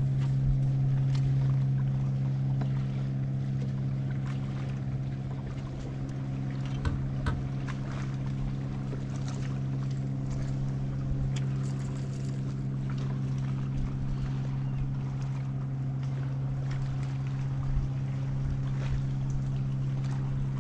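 Steady low hum of a boat motor running, with scattered light clicks and knocks.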